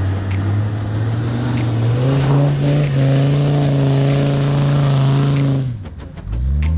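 Suzuki Jimny's engine pulling under throttle. The revs step up about two seconds in and hold steady, then fall away near the end as the throttle is released and quickly rise again, with scattered sharp ticks throughout.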